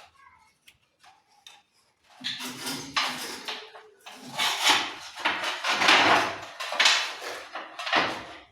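Metal trowel scraping and clinking as mortar is worked for tiling: a run of rough scraping strokes, about one a second, starting about two seconds in.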